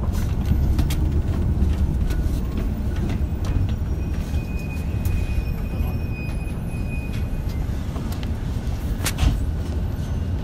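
A JR Shikoku 8000 series electric express train standing at a platform, giving a steady low hum and rumble. A thin high tone sounds for about three seconds in the middle, and there is a click near the end.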